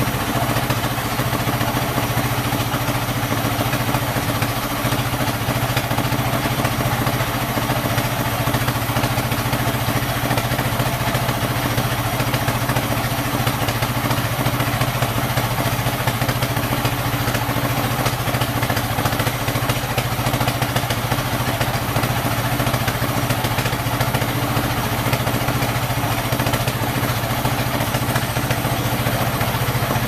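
Large 42-inch band sawmill ripping a teak log on its carriage: a steady machine hum with the blade's noise through the wood.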